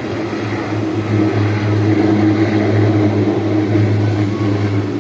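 Steady low engine hum over a wash of noise, with no breaks or changes.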